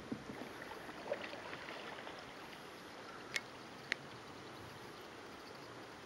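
Steady rush of river water running through a rapid, with two sharp clicks about half a second apart near the middle.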